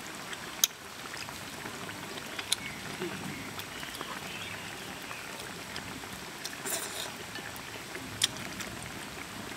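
Quiet eating sounds: chewing over a steady background hiss, with a few sharp clicks of chopsticks against a bowl.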